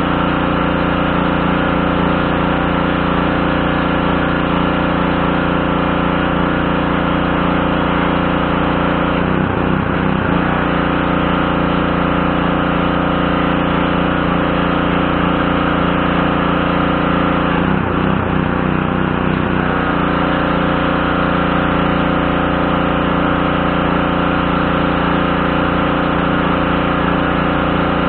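Pressure washer's Briggs & Stratton 550E 140cc single-cylinder engine running steadily. Its note wavers briefly twice, about ten seconds in and again around eighteen seconds.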